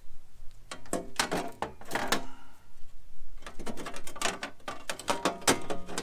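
Aluminium inner fender panel being worked into a Jeep Wrangler JL's front wheel well, knocking, scraping and rattling against the body. It comes in two flurries, one starting about a second in and a longer one from about the middle to near the end.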